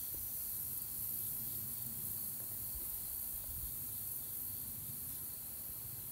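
Steady high-pitched hiss of outdoor ambience with a faint low rumble beneath; it starts suddenly and fades slightly toward the end.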